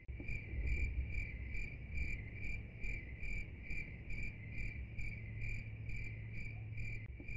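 A cricket chirping in a steady, even rhythm, about three chirps a second, over a low hum.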